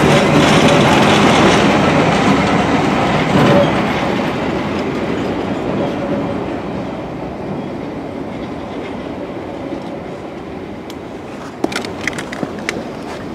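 A yellow engineering train rolling past and away, its wheels rumbling and clattering on the rails. The sound fades steadily as the last vehicle draws off, with a few sharp clicks near the end.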